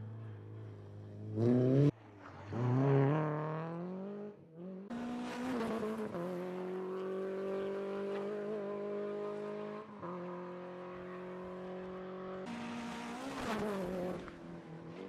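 Renault Clio rally car's engine revving hard through the gears, its pitch climbing and dropping at each shift. The sound breaks off abruptly between passes. The car holds a steadier high-revving note at a distance, then gets louder and rises in pitch as it comes close near the end.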